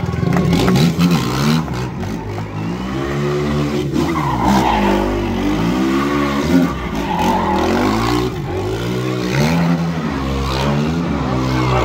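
A sport quad's engine revving up and dropping back over and over, about once a second, as the quad drifts round in circles. Its tyres skid on the asphalt under the revs.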